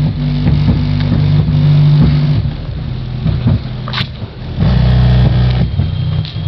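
Music played loud through a car sound system with an 8-inch Sony speaker and two 6-inch Gradiente speakers, dominated by deep bass notes. It drops quieter for about two seconds in the middle, with a sharp click about four seconds in.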